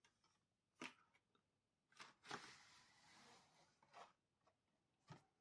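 Faint handling of GoPro packaging being opened: a few soft taps and clicks, and a longer scraping rustle about two seconds in.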